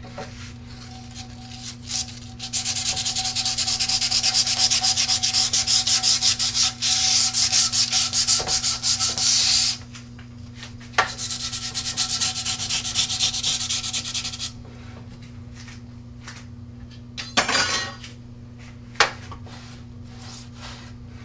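Sandpaper scuffing a fiberglass rocket airframe tube along the fin root in rapid back-and-forth strokes, in two bouts: a long one of about seven seconds, then a quieter one of about three and a half. A short rub and a sharp tap follow near the end. The scuffing roughens the surface where the epoxy fillets will go.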